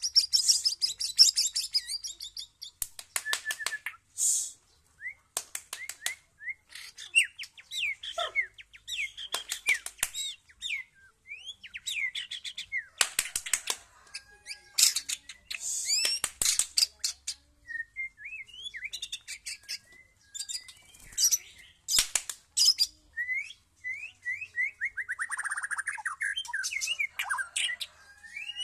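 White-rumped shama singing a long, varied song of gliding whistles, quick trills and sharp rattling clicks, with brief pauses between phrases.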